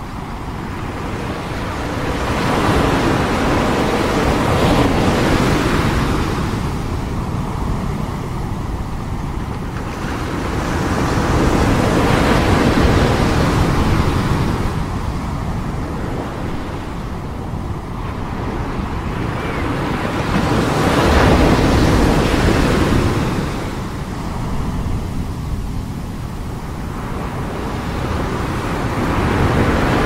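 Ocean surf: waves breaking and washing up a beach, a steady rush that swells and eases roughly every nine seconds.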